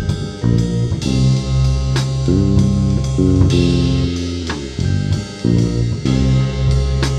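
Lo-fi background music with guitar, bass and drums.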